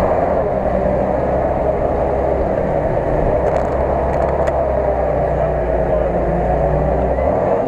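Unimog off-road truck's engine running hard under steady load as the truck churns through deep mud towing a stuck vehicle on a strap. Its deepest note drops away near the end.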